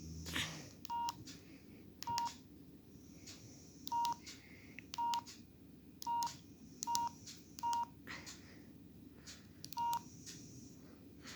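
Keys pressed one at a time at an uneven pace, about one a second, each giving a sharp click, most of them with a short electronic beep.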